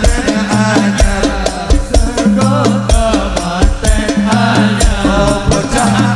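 Sholawat music: a fast, steady pattern of hand-drum and shaker-like percussion over repeated heavy bass hits, with a melodic line running above it.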